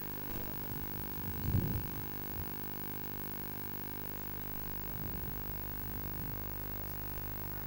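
Steady low hum made of several constant tones, with a brief muffled low thump about one and a half seconds in.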